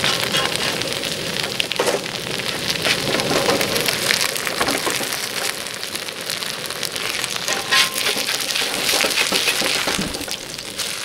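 Kimchi pancake sizzling and crackling in hot oil on a cast-iron pot-lid griddle, with a metal spatula scraping under it now and then.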